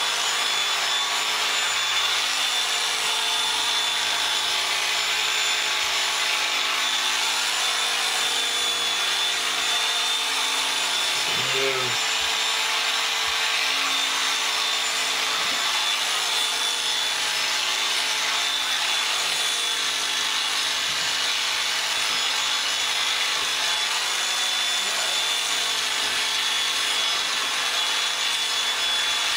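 Electric sheep-shearing clippers running steadily with a high whine as they cut through the fleece.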